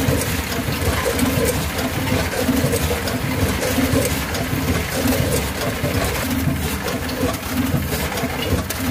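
Vertical form-fill-seal bagging machine running its intermittent-motion cycle: a steady mechanical noise with a low pulse about once a second and scattered sharp clicks.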